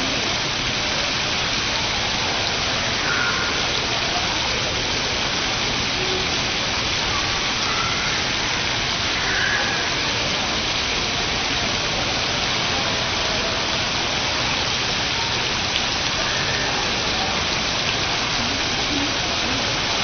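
Steady rush of water falling from a computer-controlled water curtain, like heavy rain.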